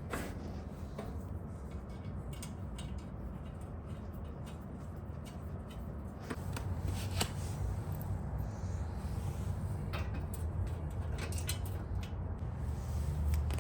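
Scattered light clicks and knocks of metal parts and tools being handled, over a steady low hum.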